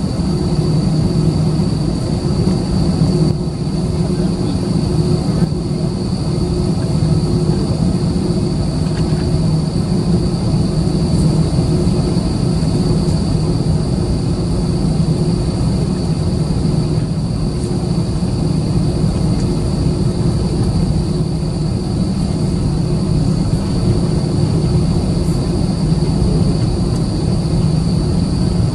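Airbus A320-214's CFM56 turbofan engines at taxi idle, heard inside the cabin over the wing: a steady low hum with a steady high-pitched whine above it.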